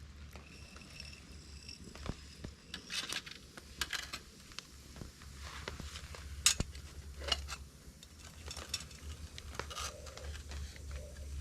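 Metal camp cookware and cutlery clinking and scraping in irregular knocks, over a low steady rumble.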